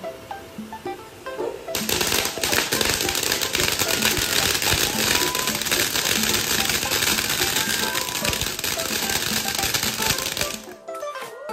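Fireworks crackling in a dense, rapid run of pops that starts suddenly about two seconds in and cuts off abruptly near the end, over background music.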